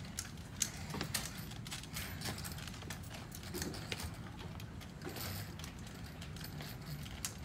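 A front-wheeled walker pushed along a hard floor in slow steps: irregular light clicks and knocks from its legs and wheels, over a low steady hum.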